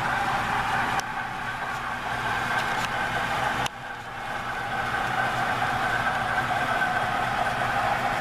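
Model trains running on the layout: a steady electric motor whine and wheel-on-rail rumble. The sound drops abruptly about a second in and again near four seconds, then builds back up.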